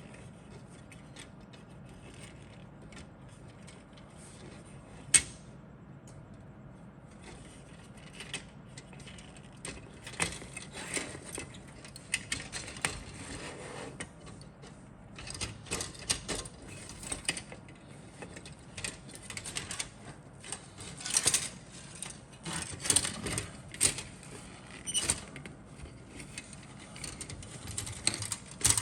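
Plastic model kit parts and sprues being handled: irregular small clicks, rattles and rustles, with one sharp click about five seconds in and busier handling from about ten seconds on.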